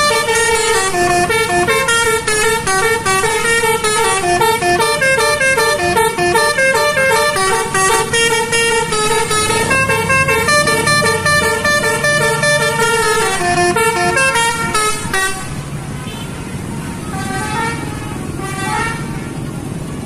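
Indonesian bus 'telolet' multi-tone air horn playing a quick melody of rapidly changing notes for about fifteen seconds. It then stops and gives way to a low steady rumble of bus engine and traffic, with a few fainter horn notes.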